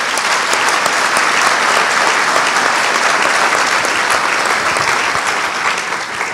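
Audience applauding, a dense steady clapping that thins out toward the end.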